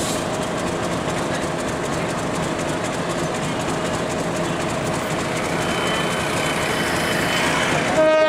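Diesel locomotive running slowly across the yard points: a steady engine rumble mixed with wheel and rail noise. Near the end its horn starts to sound.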